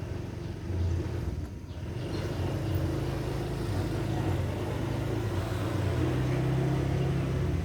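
Low, steady engine-like rumble, growing a little louder about two seconds in and holding.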